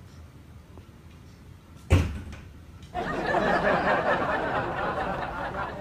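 A single loud thump or bang about two seconds in, then a steady hiss of noise from about a second later on.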